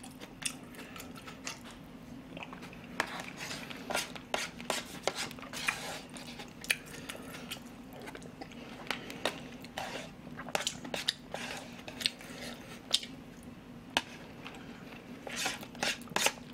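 Close-miked eating of rice porridge: a spoon scraping and clicking against a plastic takeout bowl, with chewing and wet mouth sounds, as many short irregular clicks.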